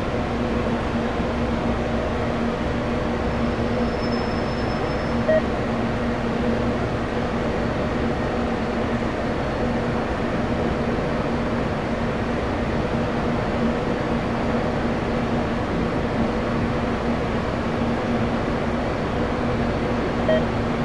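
Steady machine drone with a constant low hum, unchanging throughout, with two faint clicks, one about five seconds in and one near the end.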